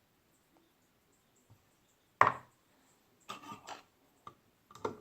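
A sharp knock about two seconds in, then a short clatter and a few lighter knocks: containers and utensils being handled and set down on a tabletop.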